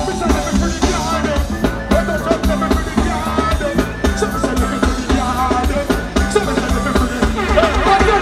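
Live reggae band playing, with a drum kit keeping a steady beat under pitched instruments.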